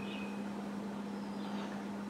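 A steady low electrical-sounding hum over faint background hiss, with light scratching of a pen writing on paper.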